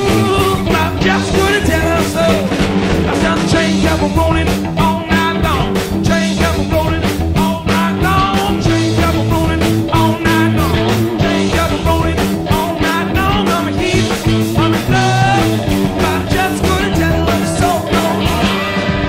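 Rock band playing live: electric guitars, bass and drums with a steady driving beat.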